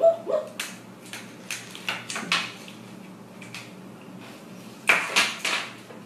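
African grey parrot: two short pitched calls at the start, then scattered sharp clicks and scuffs, with a quick loud cluster of them about five seconds in.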